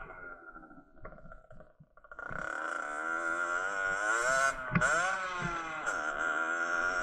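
Derbi Senda R's 50cc two-stroke engine revving while riding over rough dirt. The revs fall away briefly near the start, then climb back and rise and fall with the throttle, with a single knock about two-thirds of the way in.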